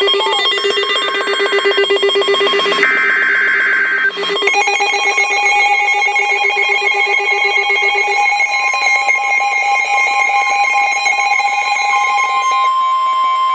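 Emergency Alert System warning tones for a severe thunderstorm warning. First comes about four seconds of rapid buzzing data bursts from the digital header. Then a long, steady electronic alert tone plays, several pitches sounding together, with the lower pitches dropping out near the end to leave a single higher tone.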